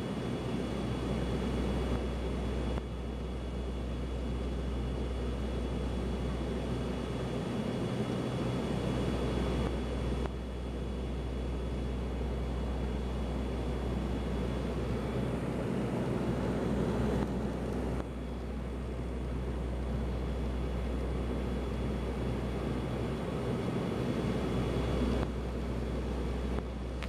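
Steady cabin drone of an ATR 72-200 in flight, its Pratt & Whitney PW124B turboprop engines and propellers running with a deep low hum under a hiss of airflow.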